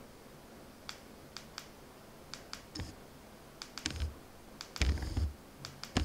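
Small plastic buttons on a handheld wireless camera remote clicking repeatedly at an irregular pace, with a few soft handling thumps.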